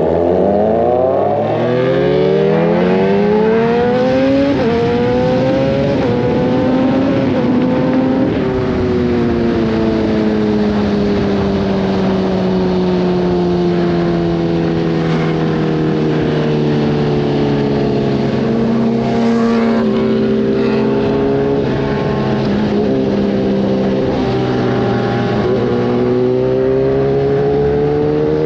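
Kawasaki ZX-10R inline-four engine through an Arrow racing exhaust, accelerating with its pitch climbing. The pitch drops at a gear change about four and a half seconds in, then climbs again to about eight seconds. After that it eases off and holds a steady cruising note.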